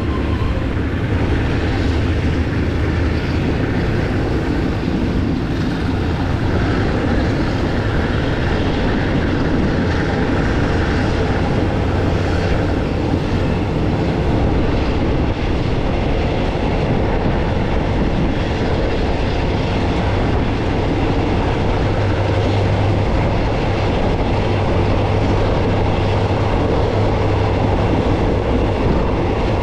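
A train running steadily: a continuous rumble of wheels on track with a low hum underneath.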